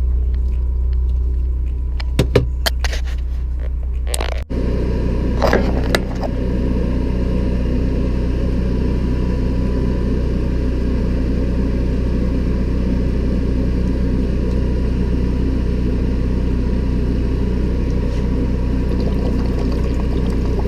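Generator running with a steady low drone and hum, with a few light clicks and knocks in the first few seconds.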